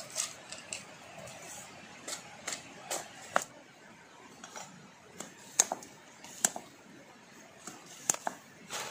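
About a dozen sharp clicks and light knocks at uneven intervals, the loudest just after the middle: small objects being handled while a trap is set.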